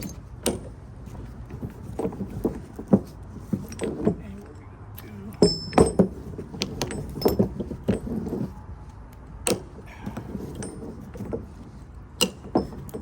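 Steel chain and a ratchet chain binder being handled, with irregular metallic clinks, rattles and a few sharp clanks.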